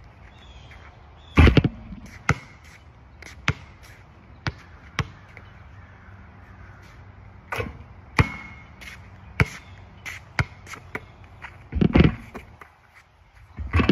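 Basketball bouncing on an asphalt court: sharp bounces at irregular intervals, roughly one a second. There are two louder, heavier thumps, about a second and a half in and near the end.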